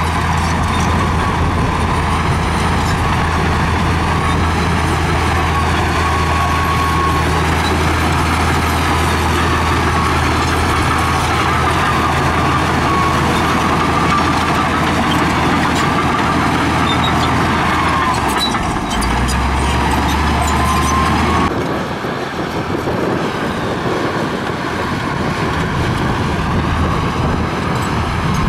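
LiuGong crawler bulldozer's diesel engine running under load as it pushes dirt with its blade: a steady low drone with a wavering high whine over it. The sound changes abruptly about three-quarters of the way through.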